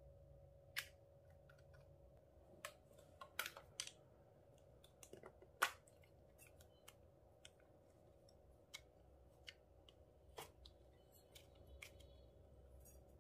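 Small plastic clay containers being opened and handled, giving sharp clicks and taps at irregular intervals, the loudest about halfway through. A faint steady hum sits underneath.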